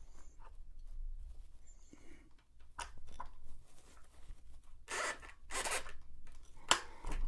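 Scraping and rubbing of a Singer 401A sewing machine's handwheel (clutch wheel) being twisted and worked off its main shaft by hand: a few faint short scrapes, then two louder, longer rasps about five seconds in and a sharp one near the end.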